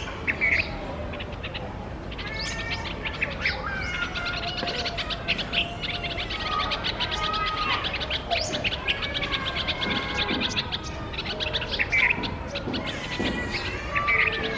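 A mixed flock of small songbirds (Indian white-eyes, bulbuls, sparrows and mynas) chirping and chattering without a break, with many rapid sharp calls overlapping. These are alarm calls at a cat hidden in the bush below.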